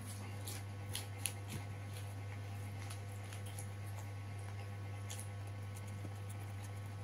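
Eating by hand from an opened paper-wrapped rice parcel: scattered crisp clicks and crinkles from the wrapper and chewing, a cluster of them about a second in and a few more around five seconds, over a steady low hum.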